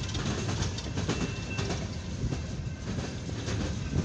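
Empty CSX coal hopper cars rolling past, their steel wheels rumbling steadily and clacking over the rails.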